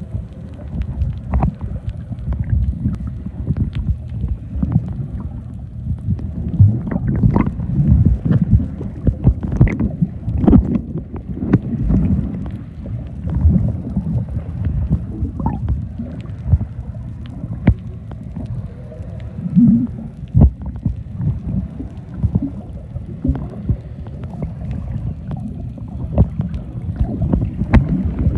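Muffled underwater noise picked up by a submerged microphone: a low rumble of moving water with many irregular knocks.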